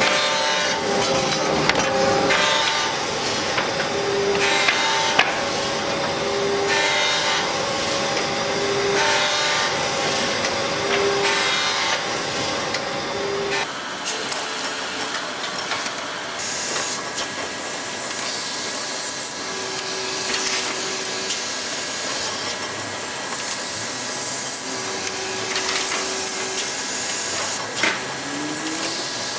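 Print-shop paper-handling machinery running: a steady mechanical clatter and hiss, with a short low hum that recurs about every second and a half at first. About halfway through it gives way to a different steady machine noise.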